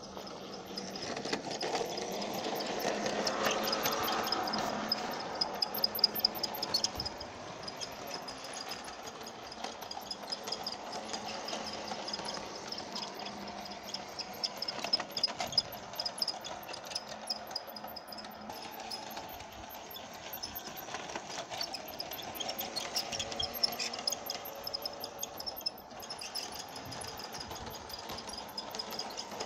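Lionel G-scale Thomas the Tank Engine toy train running on its track: a steady electric motor whir with many small clicks from the wheels on the rails, a little louder a few seconds in.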